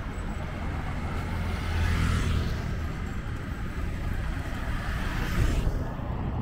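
Light street traffic: a motor scooter and a car passing close by. Their tyre and engine noise swells twice, about two seconds in and again near the end, over a steady low rumble.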